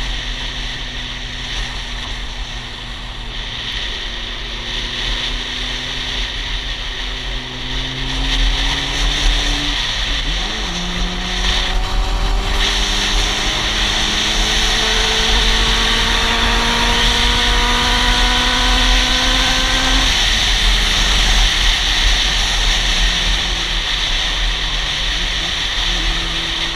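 Honda CB400 Super Four's inline-four engine pulling under way. Its pitch climbs steadily, then drops sharply about ten seconds in and again about twenty seconds in. Heavy wind noise on the microphone runs underneath.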